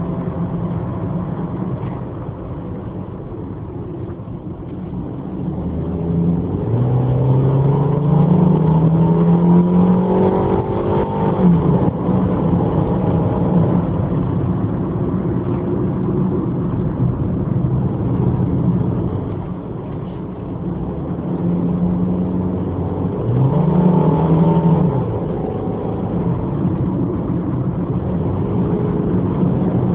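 Subaru Impreza GH3A's 1.5-litre naturally aspirated flat-four with automatic transmission, heard from inside the cabin over steady tyre and road noise. The engine note climbs under acceleration twice, about a quarter of the way in and again about three-quarters in, and falls away sharply after each climb.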